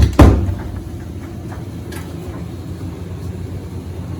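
Compact portable electric clothes dryer running with a steady low hum, after two sharp knocks right at the start.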